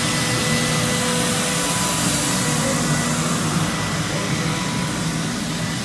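Steady whooshing drone of an electric motor moving air, with faint high whine tones and a low hum held underneath.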